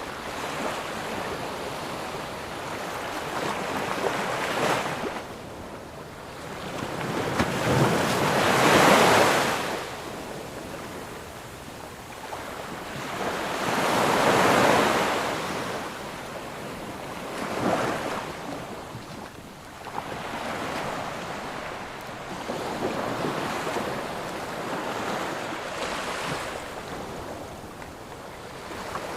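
Sea waves breaking and washing up on a sandy beach, surging and receding every few seconds. The two loudest breakers come about a third of the way through and around the middle.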